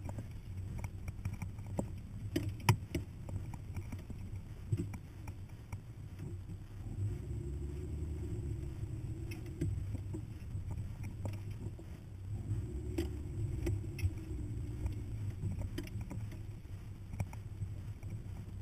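Hummer's engine running at low revs as it drives slowly over rough dirt track, with scattered knocks and rattles as the truck jolts over bumps. The engine note swells twice, about seven seconds in and again about twelve seconds in.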